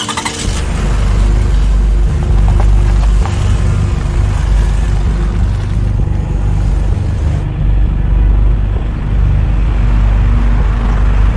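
A car pulling out and driving off, heard as a loud, deep, steady rumble.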